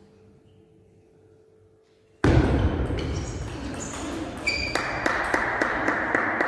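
Table tennis rally: a celluloid ball ticking sharply off paddles and the table, many quick taps over a steady hall noise that starts abruptly about two seconds in.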